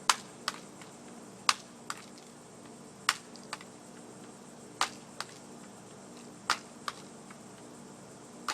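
BB gun shots: five sharp cracks about every one and a half seconds, each followed by a fainter click under half a second later.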